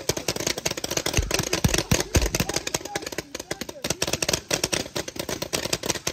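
Paintball markers firing in rapid, overlapping volleys, many sharp pops a second, with faint shouting underneath.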